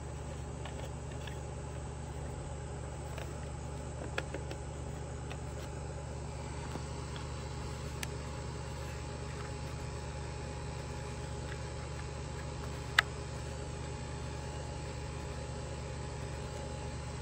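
A steady low machine hum in the background, with a few light plastic clicks and one sharp click about thirteen seconds in as the air filter cover of a stopped Homelite Super XL chainsaw is handled and refitted.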